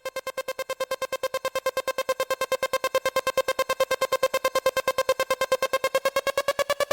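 Background electronic music: a single synthesizer note pulsing rapidly and evenly, about nine pulses a second, its pitch beginning to rise slowly near the end.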